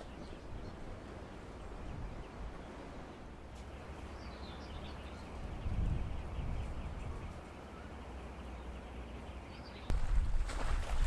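Quiet outdoor ambience with a few faint bird chirps; about ten seconds in, wind starts buffeting the microphone with a low rumble.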